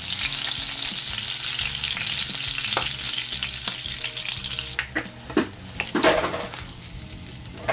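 Whole fish sizzling as it fries in hot oil in a nonstick pan, with a plastic spatula scraping and knocking against the pan as the fish is turned. The sizzle thins out about halfway, and a few sharp clicks and scrapes come near the end.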